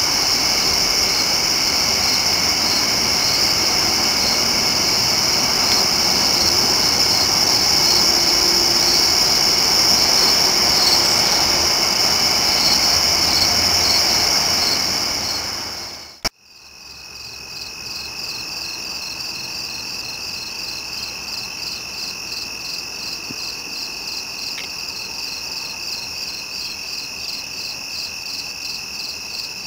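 Night chorus of crickets and other insects chirping, with a steady broad rumble under it for the first half. About halfway through the sound cuts off abruptly with a click; the rumble is gone, leaving the insects alone: a pulsing chirp chorus and one steady high trill.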